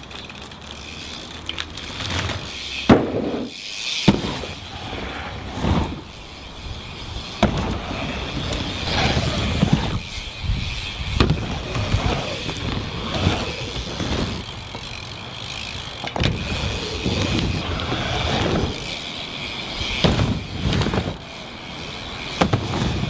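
BMX bike being ridden on backyard ramps and a roof: tyres rolling over the surfaces, with irregular knocks and thuds from landings and the bike hitting the ramps.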